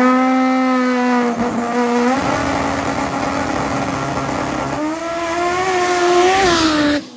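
Drag racing car's engine held at high revs at a steady pitch on the starting line, then from about five seconds in rising and wavering as the car launches down the strip. The sound cuts off suddenly near the end.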